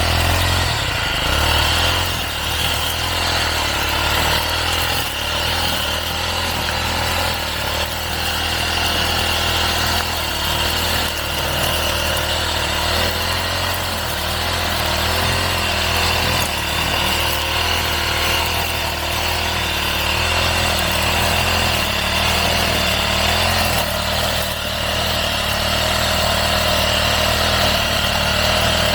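Motorised brush cutter running steadily while cutting grass and weeds.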